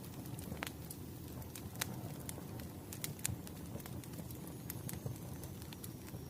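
Wood fire burning in a fireplace: a steady low rumble of flames with irregular sharp crackles and pops of the burning logs, several a second. A faint thin high tone runs through the second half.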